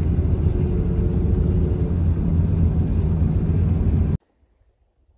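Loud, steady low rumbling noise that cuts off abruptly about four seconds in, leaving near silence.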